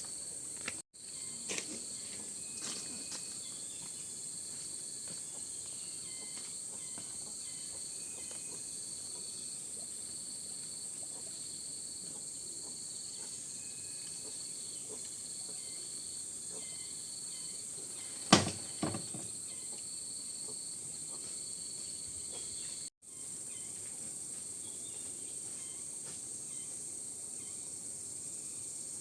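Steady, high-pitched drone of insects. There are a few light clicks in the first few seconds, then a sharp knock followed by a softer one about two-thirds of the way through.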